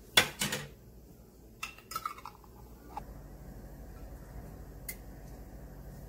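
Ceramic dishes and metal utensils clinking: a sharp clatter right at the start, a few lighter clinks about two seconds in, and a small tick near the end.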